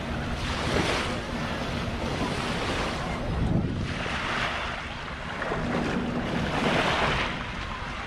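Sea waves washing onto a beach, swelling and falling back every two to three seconds, with wind rumbling on the microphone.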